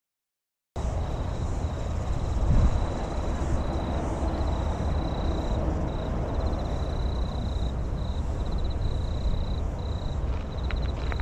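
Wind buffeting the microphone over the low rumble of distant motorway traffic, starting about a second in after a moment of dead silence. A high, steady chirping, broken into short stretches, runs above it.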